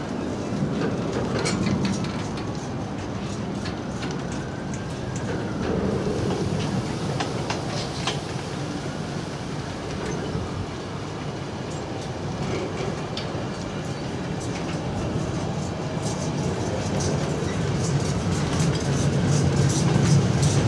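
Intermodal freight wagons carrying curtain-sided swap bodies rolling past: a steady rumble of steel wheels on the rails with clickety-clack over the rail joints, getting louder near the end.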